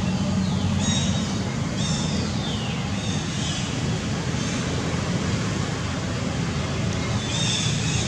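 A steady low hum, like a distant engine, with high calls that fall in pitch twice early on and a stretch of high chirping near the end.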